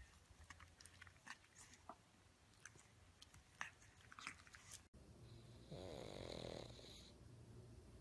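Pug puppy licking and nibbling a sprinkle-covered treat on a stick, faint scattered wet clicks. About five seconds in, a sleeping pug breathes noisily, with one louder snore about a second long.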